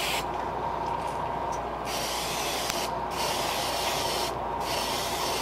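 Iwata HP-CS airbrush spraying thinned paint onto a lure blank in short passes, its hiss stopping and starting several times over a steady background hum.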